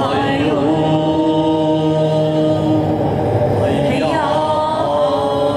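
Voices singing a chant in long held notes, with the pitch sliding just after the start and again about four seconds in.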